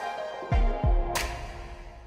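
Background music with deep bass hits that drop in pitch and a crash about a second in, then fading out.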